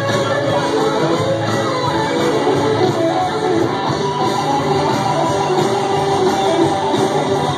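Loud band music with a singer and guitar, played over a stage sound system and picked up on a phone microphone.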